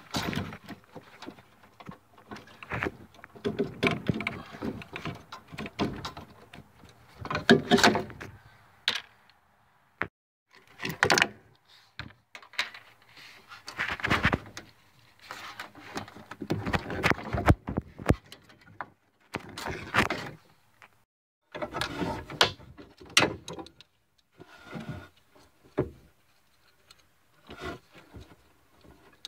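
Irregular clanks, knocks and scrapes of hands working metal parts and a steel cable on a riding mower, coming in bursts with short quiet pauses.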